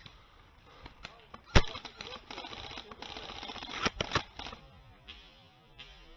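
JG VSR-10 spring-powered bolt-action airsoft sniper rifle firing: one sharp snap about a second and a half in, followed a couple of seconds later by two quicker clicks.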